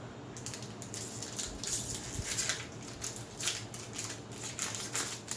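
Magic: The Gathering trading cards being handled, with repeated crisp flicks and slides of card stock as they are sorted and shuffled.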